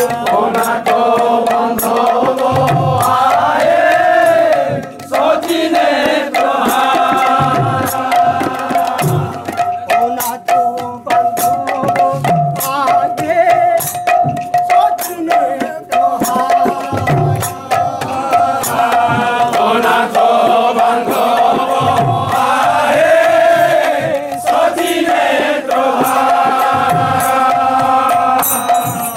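A group of men singing a devotional kirtan in chorus, with a khol (clay barrel drum) beating a steady rhythm under a fast, sharp percussive clatter.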